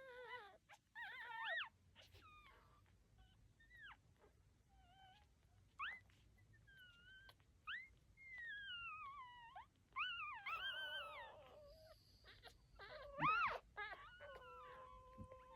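Newborn puppies whining and squeaking: many short, high-pitched cries that slide up and down in pitch, with a louder cry a couple of seconds before the end followed by one held, steadier whine.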